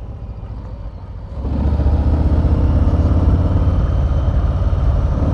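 Harley-Davidson Street Bob's V-twin engine running on the move, quieter at first, then louder from about a second and a half in as it pulls harder.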